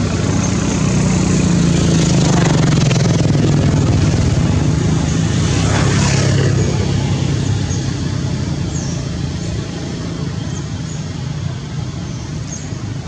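An engine running steadily, a low hum that grows gradually fainter over the second half, with a few faint high chirps near the end.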